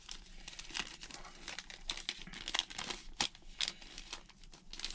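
Clear plastic packaging bag crinkling and crackling in quick irregular bursts as it is handled and opened by hand.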